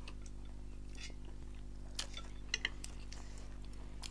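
A few light clinks of eating utensils against a dish, sharpest about two seconds in and twice more half a second later, over a steady low hum.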